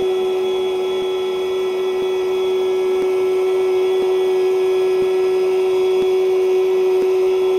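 Haulotte boom lift's hydraulic drive running with a steady whine of one pitch as the lift travels at constant speed. Faint ticks come about once a second.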